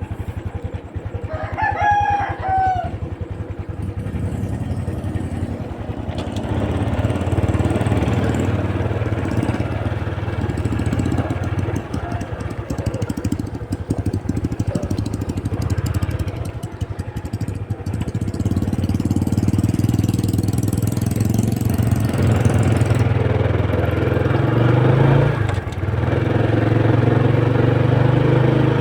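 Small motorcycle engine running steadily, with a rooster crowing once about a second in.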